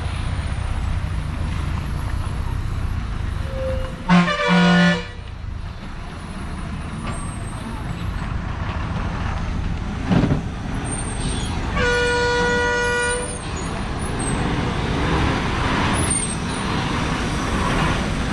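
Diesel engines of heavily loaded lorries running with a steady low rumble, with truck horns sounding twice: a short double toot about four seconds in and a longer held blast about twelve seconds in.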